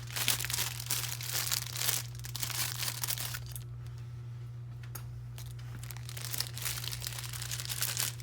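Packaging being crinkled and torn by hand as key shells are unwrapped, a dense run of crackling that pauses briefly about halfway through and then picks up again.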